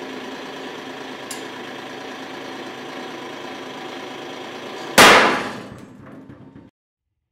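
Hydraulic press pump motor running with a steady hum while it strains a steel connecting rod in tension. About five seconds in, the rod's big-end cap gives way with a single very loud crack at roughly 14,600 kg, followed by a brief rattle.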